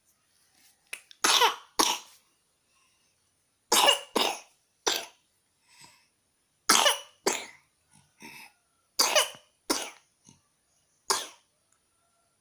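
A person coughing repeatedly, about ten loud coughs in bouts of two or three, with short pauses between the bouts.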